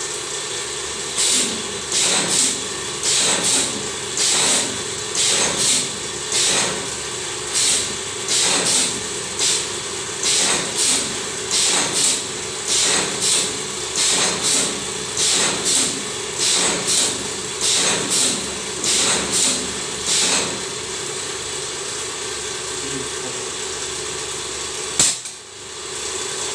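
10 kVA spot welding machine making test welds: a rapid run of short crackling buzzes, about one and a half a second, over a steady machine hum. The welds stop about three-quarters of the way through, leaving the hum. Near the end a sharp click comes with a brief dip in the hum.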